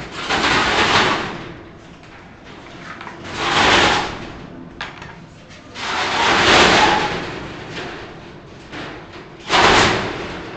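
Something heavy is slid or dragged four times, each a loud scrape lasting about a second. The strokes come at the start, about three and a half seconds in, about six seconds in, and near the end.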